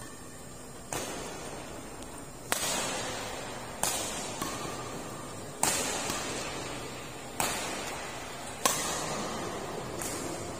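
Badminton rackets striking a shuttlecock back and forth in a rally: about seven sharp smacks, roughly one every second and a half, each followed by the echo of a large indoor sports hall.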